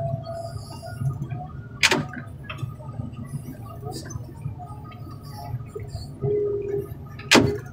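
Heavy diesel machinery running with a steady low rumble, broken by two sharp metal bangs, one about two seconds in and one near the end, as a semi-truck cab is worked at the crusher.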